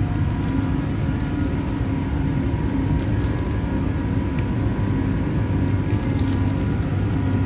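Metro train running, heard from inside the carriage: a steady low rumble with an even, multi-tone motor hum over it.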